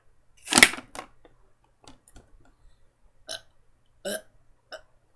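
A person burps loudly once, about half a second in, after drinking a bottle of iced water, followed by a few much softer short sounds.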